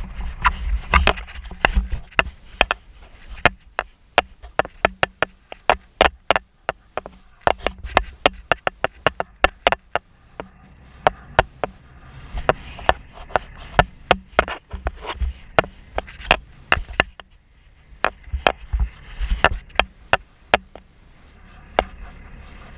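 Sharp, irregular clicks and knocks, several a second, with bursts of low rumbling in between, as heard on underwater dive footage.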